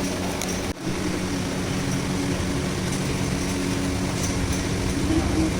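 Steady mechanical hum with a low, even drone, like a motor or engine running in a workshop. It dips out briefly just under a second in.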